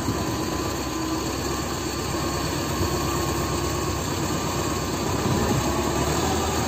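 T-40 tractor's air-cooled diesel engine running steadily, with an even, fast firing beat.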